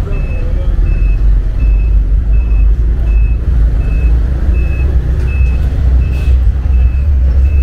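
Tram running along its track with a steady low rumble, while a short electronic beep repeats evenly, about three beeps every two seconds.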